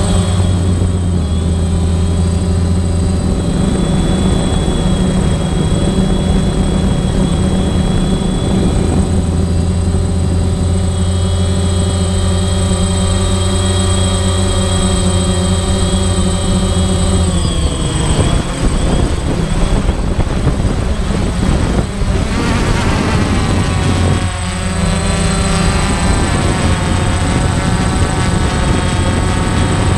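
Parrot Bebop quadcopter drone in flight: the steady whine of its propeller motors. The whine falls in pitch a little past halfway, swings up and down for a few seconds as the motors change speed, and then steadies again.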